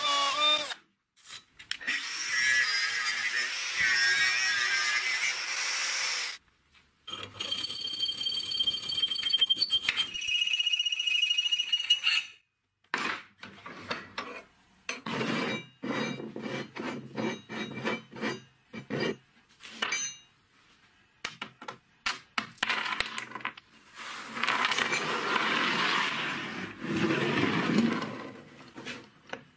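Metalworking on square steel tube, in several short cuts: a drill whining as it bores into the tube, long stretches of cutting or filing noise, scattered clinks and knocks of metal parts, and near the end a steel tube fitted with small bearings rolled across a wooden bench.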